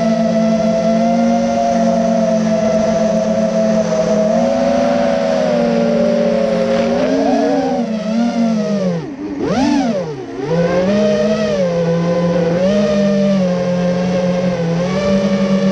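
FPV racing quadcopter's brushless motors and propellers whining steadily in flight, the pitch wavering with throttle. About nine seconds in the whine drops sharply and swoops back up as the throttle is cut and punched again.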